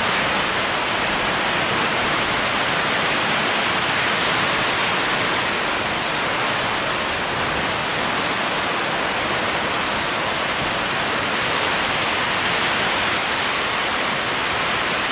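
Heavy rain hissing steadily on the tarp roof of a canopy tent.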